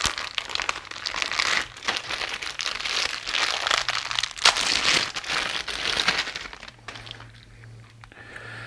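Plastic parts bags crinkling and rustling as hands rummage through them, for about six and a half seconds, then quieter handling.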